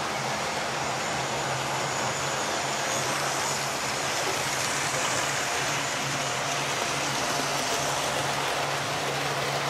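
Several electric model trains running together on a three-track layout: a steady whir of their motors with their wheels rolling along the rails, and a faint low hum underneath.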